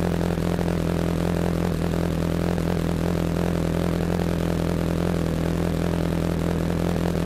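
Honda CBR sport bike's engine running at a steady, unchanging pitch, with a hiss of wind noise over it.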